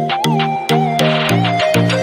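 Background music with a steady beat: a repeating bass and synth melody over regular clicking percussion.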